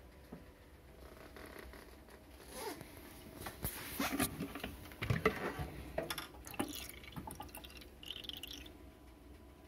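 Irregular clicks, knocks and rattles from a Juki DDL-8700 industrial sewing machine being handled, as the head is tilted back on its hinge to expose the oil pan. The loudest knock comes about five seconds in, and a short scrape follows near the end.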